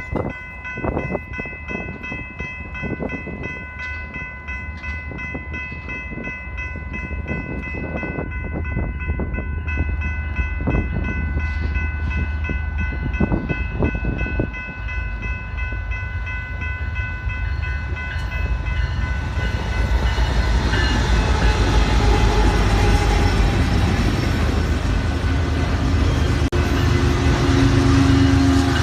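Freight train passing: the low rumble of diesel locomotives and rolling railcars, growing louder about two-thirds of the way through. Over it, a set of steady high tones runs until that point.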